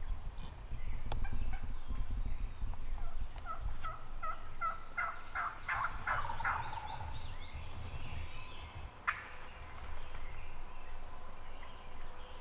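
Wild turkey calling: a run of short, evenly spaced notes about three seconds in, running into the rapid rattle of a gobble. A single sharp click comes near the nine-second mark.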